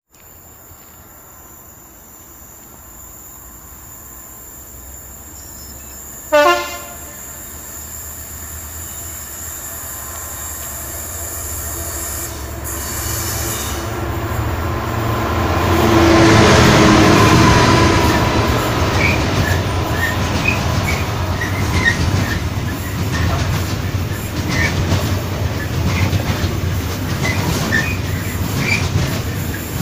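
Freightliner Class 66 diesel locomotive approaching with a coal train, its engine growing steadily louder, with one short horn blast about six seconds in. The locomotive passes at its loudest, then a long rake of coal hopper wagons runs by with wheel clatter and brief high wheel squeals.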